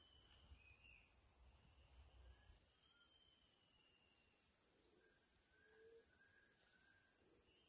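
Faint rainforest ambience: a steady high insect drone, with a few thin whistled bird notes. There is a soft knock near the start, and a low rumble that fades out about two and a half seconds in.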